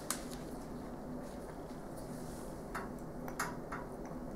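A small plastic medication vial and nebulizer cup handled in gloved hands: one sharp click right at the start, then a few light plastic clicks and taps about three seconds in as the vial is squeezed into the nebulizer cup.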